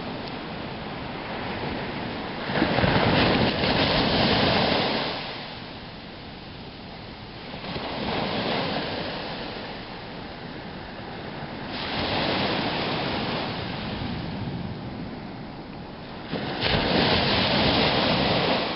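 Small sea waves breaking on a sandy beach and washing up the shore, the surf swelling four times, about every four to five seconds, with the two loudest surges starting suddenly.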